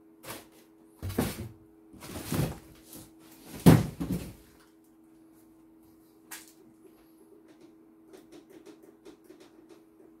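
Knocks, bumps and rustles of things being handled at a workbench: several in the first half, the loudest about three and a half seconds in, over a steady low hum. Faint quick clicking comes in near the end.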